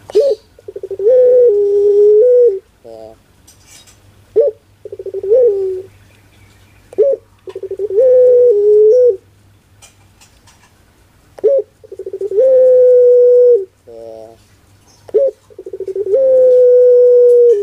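Ringneck (Barbary) dove, the puter, cooing five times in a row: each call is a short rising note followed by a long, deep, held coo of one to two seconds, with a short stuttering coo between calls.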